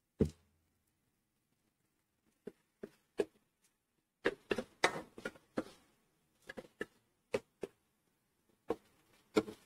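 Metal spoon scraping and clinking against a stainless steel pan as thick onion-tomato masala is stirred: one click at the start, then, from a couple of seconds in, a run of short, irregular scrapes and knocks in clusters.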